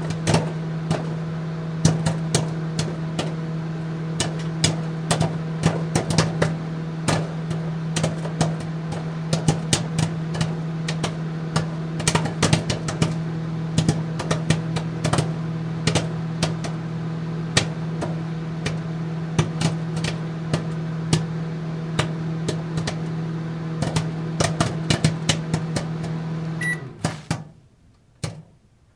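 Popcorn popping in a microwave oven: irregular sharp pops, several a second, over the oven's steady hum. Near the end the hum cuts off.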